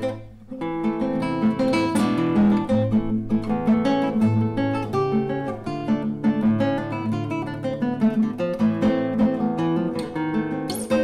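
Solo nylon-string classical guitar played fingerstyle: a steady stream of plucked notes over bass notes.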